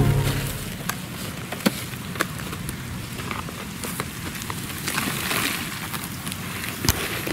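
Handling noise: a woven plastic sack crinkling and dry straw rustling as a snake is pushed into the sack, with a few sharp clicks about one and a half, two and seven seconds in.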